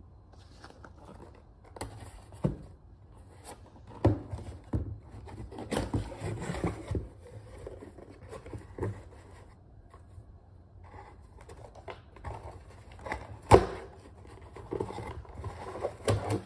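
Cardboard shipping box being handled and opened by hand: scraping, rustling and knocking of the flaps and lid, with a sharp knock about three-quarters of the way through.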